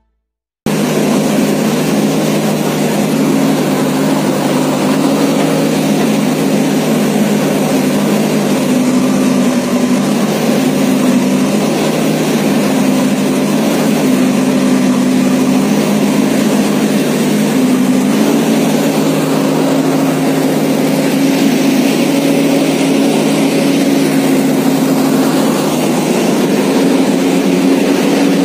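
JCB backhoe loader's diesel engine running under load while digging snow, its note stepping up and down as the engine speed changes.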